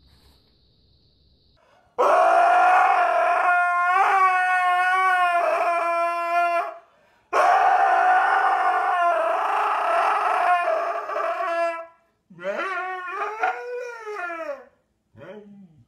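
Husky howling, starting about two seconds in: two long, steady howls of about four to five seconds each, then a few shorter howls that rise and fall in pitch.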